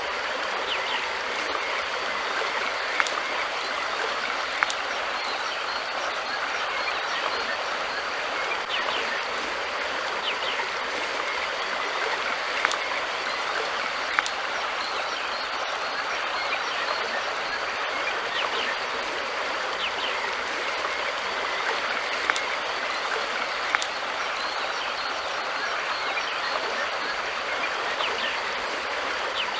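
River water flowing in a steady rush. A few sharp clicks stand out, in pairs about a second and a half apart.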